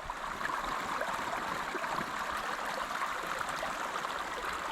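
Creek water flowing past rocks: a steady, even rush.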